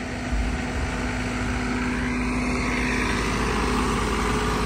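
Engine of a green John Deere compact tractor running steadily as it tows a tram of open passenger trailers.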